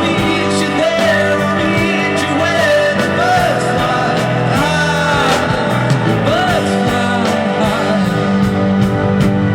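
Rock song with a sung vocal over guitar and a steady drum beat.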